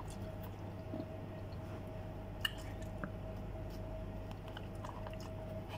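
Faint chewing of juicy watermelon chunks, with a few soft clicks, the clearest about two and a half and three seconds in, as a spoon touches the plastic container. A steady hum runs underneath.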